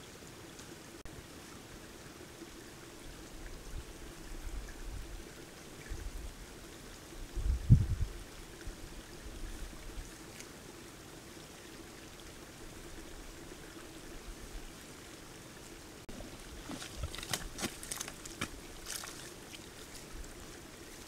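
Sambar stag in velvet wallowing in a mud wallow: wet mud and water sloshing as it shifts, with a heavier low thump about a third of the way in. Near the end comes a quick run of splashes and sucking mud as the stag gets up out of the wallow.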